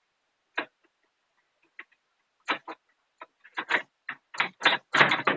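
Sharp metallic clicks and rattles of a padlock and door hasp being unlocked with a key and handled, a few scattered clicks at first, then coming quicker and louder toward the end.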